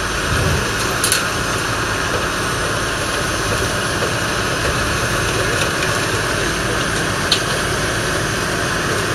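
JCB Fastrac 4220 tractor's 6.6-litre six-cylinder diesel engine running steadily, with two brief sharp clicks, one about a second in and one near the end.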